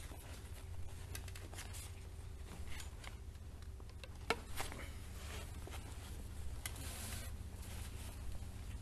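Faint rustling of a softbox's fabric inner diffuser being handled and clipped into the corners with its straps, with scattered light clicks and one sharper click about four seconds in, over a steady low hum.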